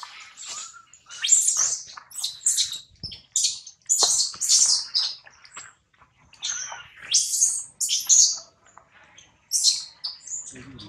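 Animals calling in a tree: a run of short, high-pitched chirps and squeaks, one or two a second, with short gaps between them.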